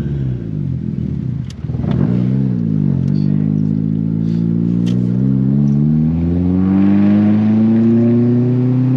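Built 1.8T four-cylinder turbo engine under hard acceleration: the revs drop and rise at gear shifts in the first couple of seconds, then climb steadily. The exhaust is deep and smooth, running straight pipes with only a Vibrant resonator.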